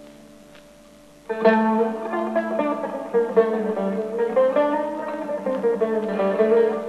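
Turkish tanbur, a long-necked fretted lute, being plucked. A ringing note dies away, then about a second in a melody of quick plucked notes starts with a strong stroke.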